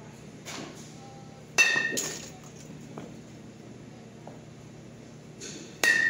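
A youth baseball bat hitting a pitched ball twice in batting practice, each contact a sharp crack with a short ring, about a second and a half in and again near the end. A second, softer knock follows shortly after the first hit.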